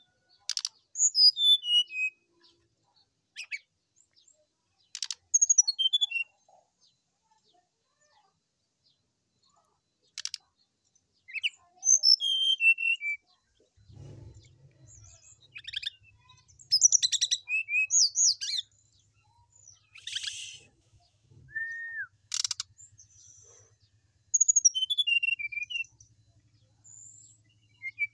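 Brown-chested jungle flycatcher singing: short phrases of quick clear whistles that fall in pitch, about five phrases a few seconds apart, with a few sharp notes between.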